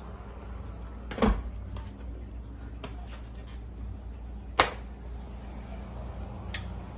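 Two sharp knocks about three seconds apart, with a few fainter clicks between and after, over a steady low hum.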